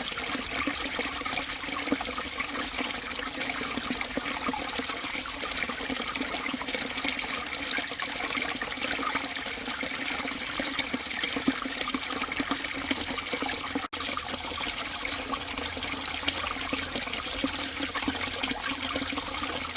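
Small forest stream murmuring steadily, water trickling and burbling. The sound cuts out for an instant about two-thirds of the way through.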